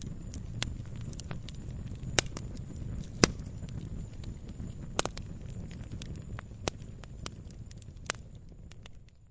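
Firewood burning: irregular sharp pops and crackles over a low, steady rumble of flame, with the loudest snaps about two, three and five seconds in. The fire fades a little near the end.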